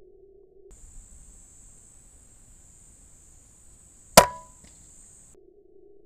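A single shot from an Uragan 2 PCP air rifle firing a 5.5 mm pellet: one sharp crack about four seconds in, followed by a short ring.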